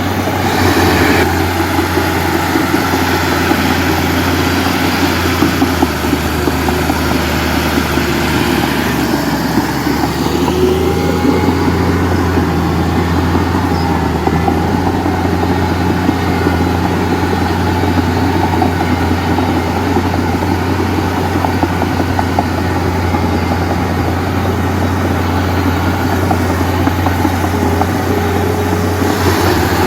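Heavy diesel engine of earthmoving machinery running steadily, a continuous low drone with small shifts in pitch.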